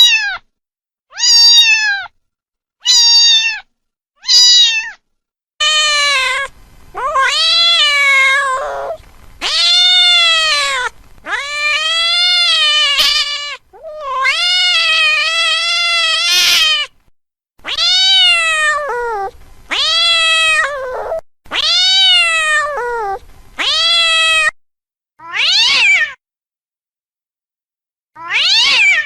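Domestic cat meowing over and over: four short high meows, then a run of about nine longer, lower, drawn-out meows, and two short meows near the end.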